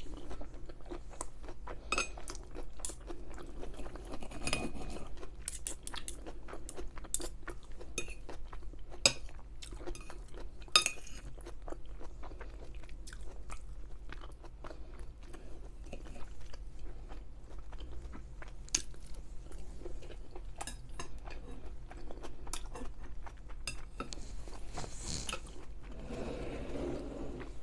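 A person eating close to the microphone: chewing and small mouth clicks, with cutlery knocking on a plate, the two sharpest clinks about nine and eleven seconds in.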